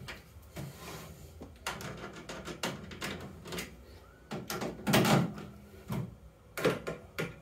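Screwdriver loosening screws in a microwave oven's sheet-metal outer casing, with scattered clicks and knocks from the metal cover being handled; the loudest clunk comes about five seconds in.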